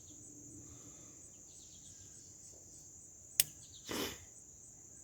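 Steady high-pitched insect chirring, with one sharp click about three and a half seconds in and a brief rustle half a second later.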